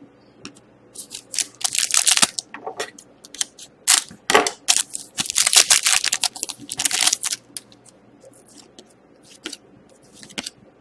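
Trading-card pack wrapper and cards being handled: crinkling and rustling in dense bursts for several seconds, then a few light ticks near the end.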